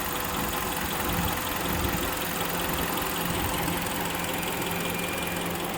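Kia Sportage 3's overhauled 2.0-litre G4KD four-cylinder petrol engine idling steadily, warm, with the air-conditioning compressor switched on.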